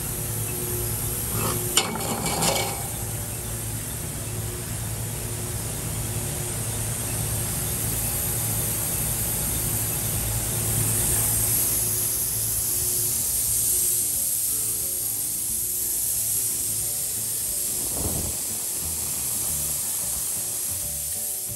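Machinery in a metal-hose factory running steadily: a constant hiss over a low hum. A few brief metallic clinks come about two seconds in as corrugated brass tubes are handled.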